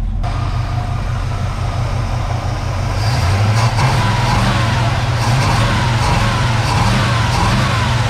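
Chevy 305 small-block V8 running, a little louder from about three seconds in, after a bent pushrod has been replaced; it sounds pretty good and seems to be firing on all cylinders.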